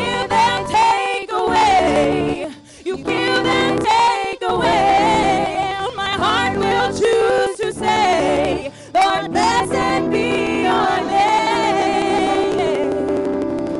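Four women singing a praise song together through microphones, in phrases with short breaths between them about two and a half, four and a half and nine seconds in.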